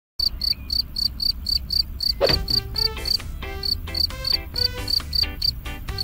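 Field cricket chirping: an even series of short, high chirps, about four a second. About two seconds in, a swoosh and light music with plucked notes come in under the chirping.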